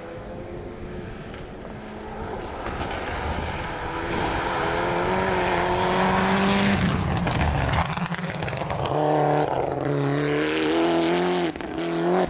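Mitsubishi Lancer Evolution IX's turbocharged four-cylinder engine racing at full throttle. It grows louder as the car approaches and is loudest as it passes, about halfway through. Then, as it pulls away uphill, its note rises and breaks off at several quick gear changes.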